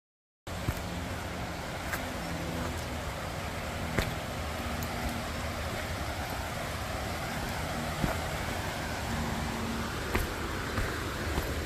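Footsteps of a hiker walking down a rocky, gravelly trail, with a few sharp clicks, over a steady rushing noise that starts abruptly just after the beginning.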